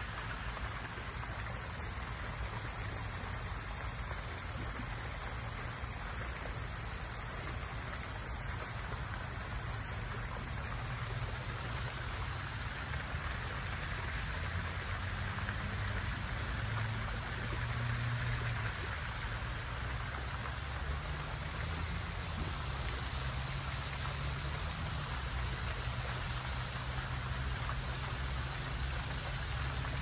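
Steady rushing and splashing of a small waterfall spilling down a stone wall into a lily pond, with a low rumble underneath.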